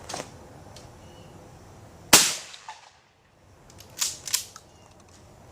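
A single shotgun shot fired at a thrown clay target about two seconds in, a sharp crack that dies away quickly. About two seconds later come two quicker, quieter clacks.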